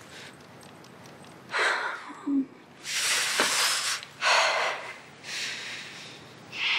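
A woman breathing audibly: a series of short, breathy breaths, each lasting well under a second.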